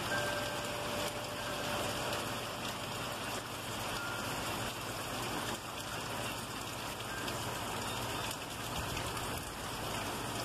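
Heavy rain pouring steadily, a dense even hiss. A few faint ringing notes from wind chimes are heard in the first few seconds.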